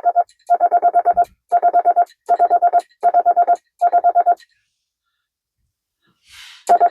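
Morse code sidetone from a ham radio rig keyed by a 1922 Vibroplex Martin Junior semi-automatic bug. The steady beep is chopped into short runs of rapid automatic dits from the bug's vibrating pendulum, the Morse figure 5. Six runs are sent, then a pause of about two seconds, and the runs start again near the end.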